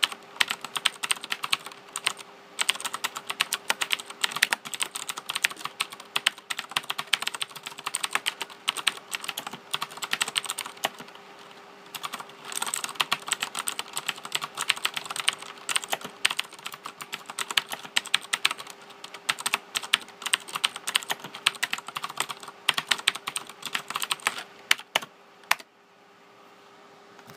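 Fast typing on a Razer BlackWidow 2013 mechanical keyboard: dense runs of key clicks with a short lull about halfway through. The typing stops a couple of seconds before the end.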